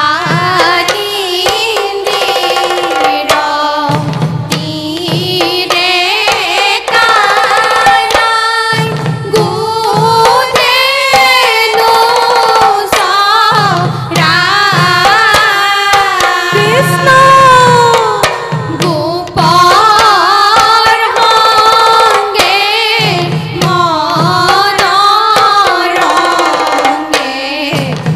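Women singing an Assamese dihanam, a devotional song, with a melismatic lead voice over a steady rhythm of hand clapping and percussion.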